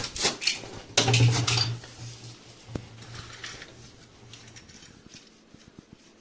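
Metal clanking and clattering, loudest about a second in, then dying away.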